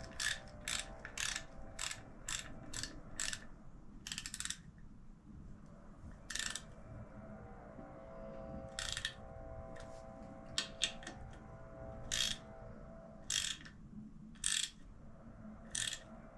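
Hand socket ratchet clicking as bolts are snugged tight. Short, sharp bursts of ratchet clicks come about twice a second for the first three seconds, then a longer run, then single bursts every second or two.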